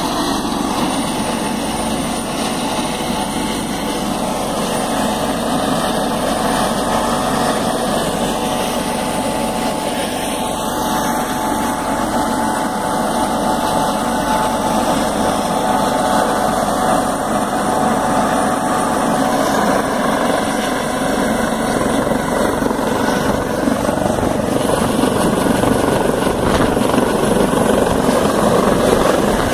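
Helicopter running close by: continuous turbine and rotor noise with a steady whine, getting slightly louder near the end.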